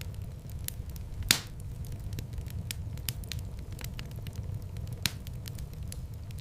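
Wood fire in a fireplace crackling with many sharp irregular snaps over a steady low rumble. Two louder pops stand out, one about a second in and one near the end.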